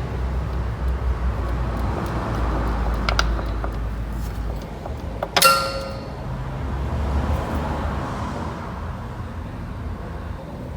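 Car engine running with a steady low rumble and a few light clicks. About halfway through comes one loud, sharp metallic clank that rings briefly.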